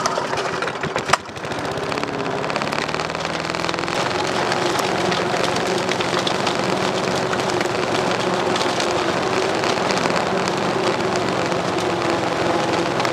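Briggs & Stratton single-cylinder engine of a rotary push lawn mower running steadily under way across grass, with a sharp crack about a second in.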